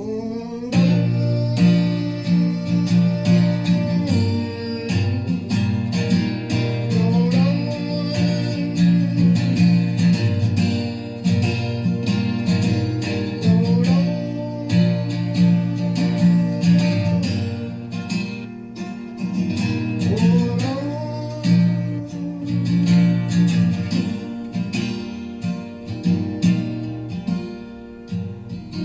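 Acoustic guitar strummed steadily in an instrumental passage of a song. A voice holds wordless notes over it, sliding up into each one about every six or seven seconds.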